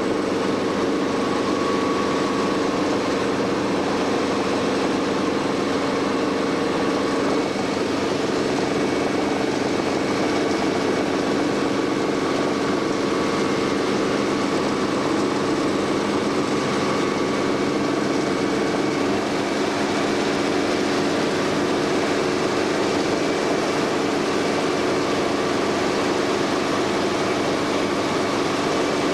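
Helicopter engine and rotor running steadily in flight, heard on board as a constant drone with a steady hum.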